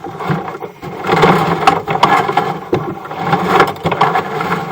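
A sewer inspection camera being fed along a drain line, its push cable and head scraping and knocking irregularly against the pipe.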